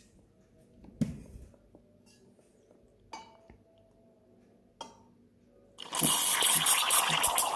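A few light knocks and clicks from handling a stainless milk pitcher, then about six seconds in an espresso machine's steam wand opens in the milk with a sudden loud hiss and crackle: milk being steamed and frothed. A regular low pulsing runs under the hiss.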